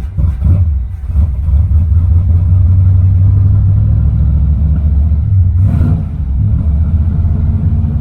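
A Corvette's carbureted engine running just after being jump-started from a dead battery, its carburetor float bowl primed with a little gas. The rumble builds over the first two seconds and then holds steady, with a brief knock just before six seconds.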